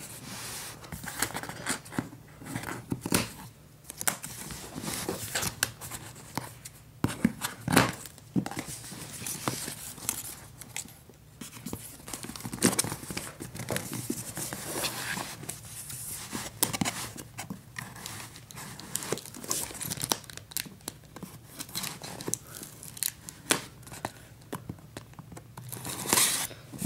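A cardboard retail box being opened by hand: the seal and tape along its edge tearing and scissors cutting along the seam, with irregular scratching and crinkling as the box is worked.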